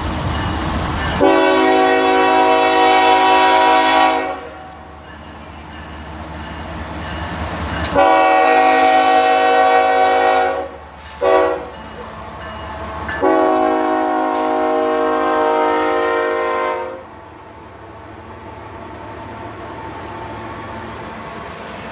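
A GE ES44AC freight locomotive's five-chime Nathan K5-series air horn sounds the grade-crossing signal: long, long, short, long. The diesel engine rumbles underneath as the locomotive approaches. After the last blast the freight cars roll past with a steady rumble.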